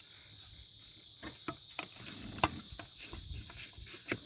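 Crickets chirring steadily in the background, with a few scattered faint clicks and two sharper taps, one midway and one near the end.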